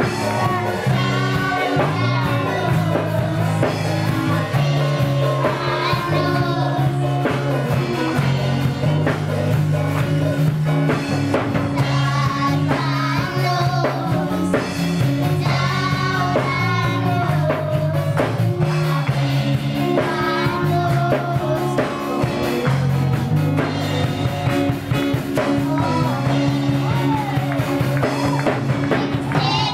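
A group of young girls singing a church song into microphones over an amplified instrumental accompaniment with a steady bass line.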